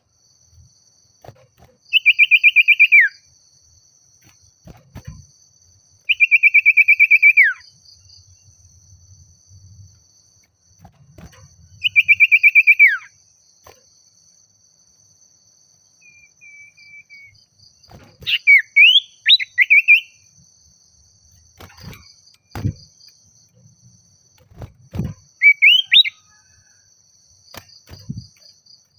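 Common iora (sirtu/cipoh) singing: three long rapid trills a few seconds apart, each dropping in pitch at the end, then shorter rising whistled phrases. A faint steady high insect buzz runs underneath.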